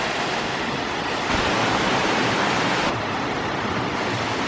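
Steady rushing of falling water, an even hiss that swells a little louder for a second or two in the middle.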